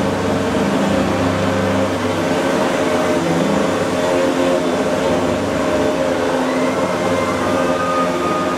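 Electric blower motors of homemade hovercraft running, a steady loud drone of several motors with overlapping pitches that shift slightly.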